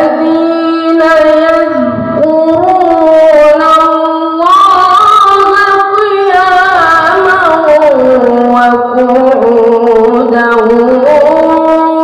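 A boy reciting the Quran in the melodic tilawah style into a microphone, holding long ornamented notes. His voice climbs to a higher note about four and a half seconds in, sinks back around eight seconds, and rises again near the end.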